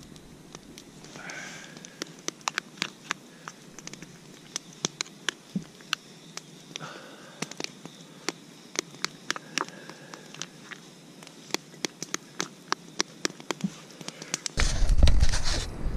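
Metal spoon clinking and scraping in an enamel mug while stirring oatmeal: irregular sharp clicks, a few a second. A loud rush of noise comes near the end.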